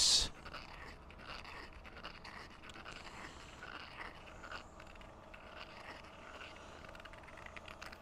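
Hand deburring tool scraping the edge of a thin brass plate, taking the edge off: faint, irregular scrapes with small clicks.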